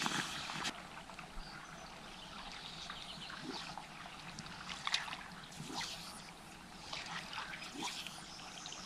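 Quiet river-bank ambience: river water trickling and lapping gently at a sandy shore, with scattered faint ticks. A few footsteps on wet sand in the first second.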